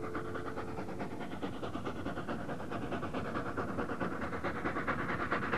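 Steam locomotive working hard, its exhaust beating in rapid, even chuffs that grow louder as it approaches.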